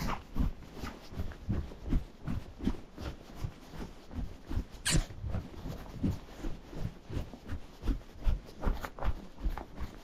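A horse's hooves on a packed snowy road at a walk: a steady rhythm of soft thuds, two to three a second. One short, sharp sound comes about five seconds in.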